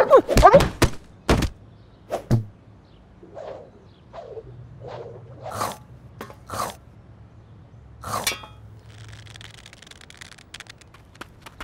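Cartoon sound effects: a quick run of thumps and knocks, then a string of short upward squeaks, a clink with a brief ring about eight seconds in, and a soft hiss after it.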